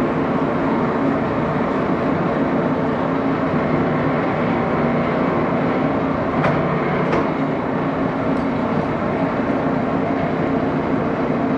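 Axelson engine lathe running with a steady mechanical hum from its motor and drive. Two short sharp clicks come about six and a half and seven seconds in.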